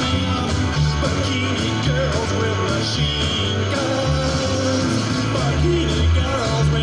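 Rock and roll song with drums and electric guitar, and a driving electric bass line played along on an SG-style electric bass.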